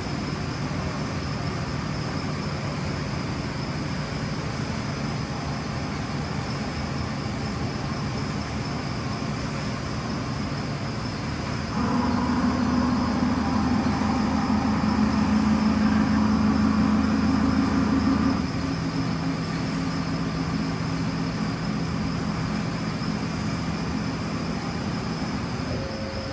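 Haas TM-1 CNC vertical mill running with a steady machine hum and whine. About twelve seconds in it steps up to a higher pitch and gets louder. About six seconds later it drops to a lower steady pitch.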